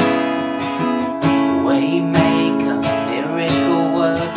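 Acoustic guitar with a capo, strummed in steady chords, and a man's singing voice joining in about a second in.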